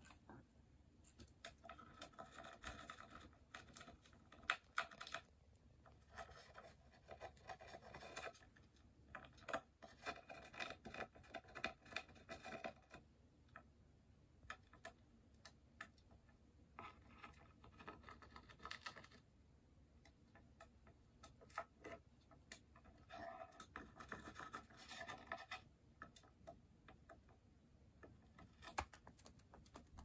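Cockatiel's beak gnawing and scraping at a wooden perch stand: faint spells of rapid small clicks and scratching a few seconds long, about five times, with quiet gaps between.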